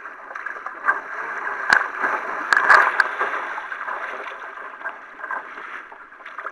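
Kayak paddle strokes in choppy water, with water splashing and rushing against the hull close to a deck-mounted camera. A few sharp hits stand out between about one and three seconds in.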